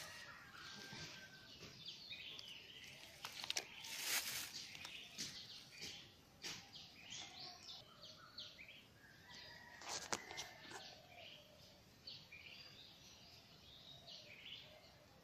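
Small birds chirping in the background, many short high calls throughout. A few brief rustles cut across them, the loudest about four seconds in and again about ten seconds in.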